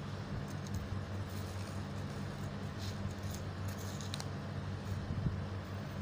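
Faint crinkling of foil origami paper being handled, a few short rustles about three to four seconds in, over a steady low hum.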